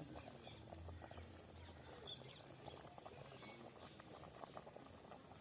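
Faint, rapid, irregular crackling and popping of a curry cooking in a pot over the fire.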